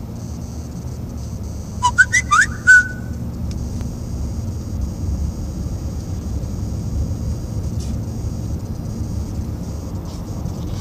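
Steady low rumble of a car's engine and tyres heard from inside the cabin, with a faint high hiss over it. About two seconds in comes a quick run of four or five loud, short, rising whistle-like chirps.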